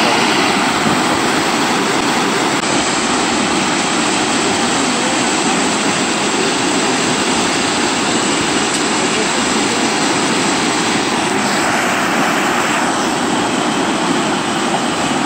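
Water gushing out of a culvert pipe in a concrete wall and churning into a channel as white water: a loud, steady rush.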